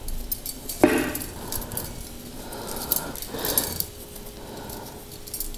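Loose bicycle spokes clinking and jangling against one another and the hub as they are worked out of a rear hub's flange, with many small sharp metallic clicks and a couple of brief louder knocks.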